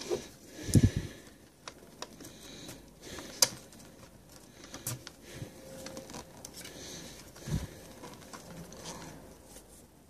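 Paracord ends being pulled back through a tightly woven paracord lead with needle-nose pliers: cord rustling and rubbing, with scattered sharp clicks and a low handling thump about a second in and another later on.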